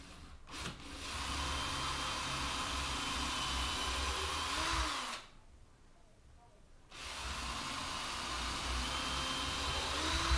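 Power drill boring holes into a wooden workbench door, in two runs of about four seconds each with a short pause between.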